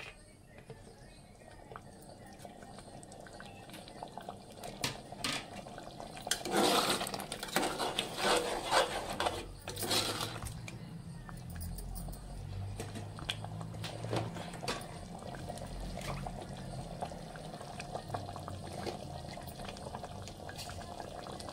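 A spoon stirring curry in a pressure cooker pot, with clinks and scrapes against the metal and the wet gravy sloshing. The clatter is loudest about seven to ten seconds in, then settles into quieter, scattered stirring.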